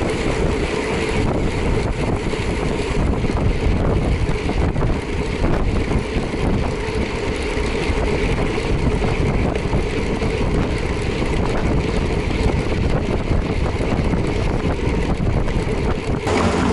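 Wind buffeting the microphone at riding speed, over a steady low drone from the moving vehicle.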